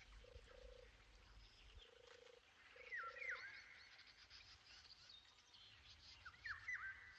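Faint wild-animal calls: a low croaking call repeats in short pulsed bursts through the first three seconds or so. Birds chirp over it, with a pair of quick falling calls about three seconds in and again near the end.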